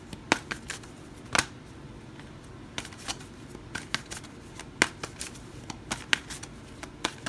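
A deck of oracle cards being shuffled by hand: an irregular series of short, crisp card snaps and flicks.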